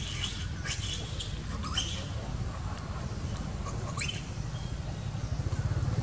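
Short, high-pitched animal squeaks, a handful of times, some sweeping sharply upward in pitch, over a steady low rumble.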